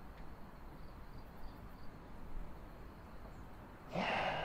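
Quiet background ambience. Near the end comes a short, louder, breathy sound.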